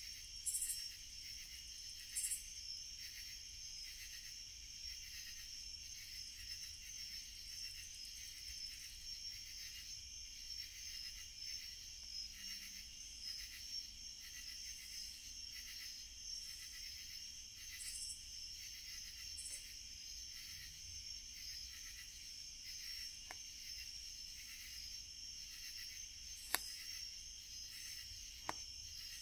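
Night insects calling in a steady, shrill, pulsing chorus. A wood campfire crackles, with a few sharp pops in the last few seconds.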